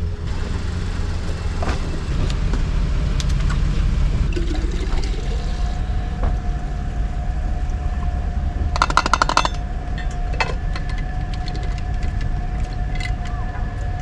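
A car's engine running with a steady low rumble, with scattered clicks and knocks and a quick rattle of clicks about nine seconds in.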